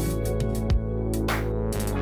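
Electronic background music: held chords over a drum beat.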